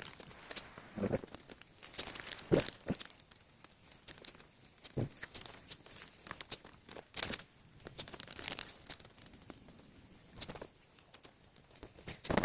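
Irregular clicks, knocks and crinkling, about a dozen sharp ones scattered through, from hands handling car parts and tools during radiator fan work.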